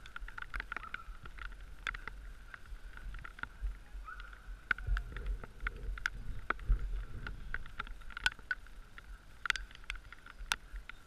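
Dog sled running along a snow trail: a steady hiss of the runners sliding over snow, with scattered sharp clicks and knocks from the sled and harness. Low wind rumble on the microphone swells midway.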